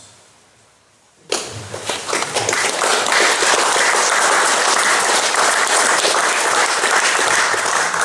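Audience applauding: many people clapping, starting suddenly about a second in and continuing at a steady, full level.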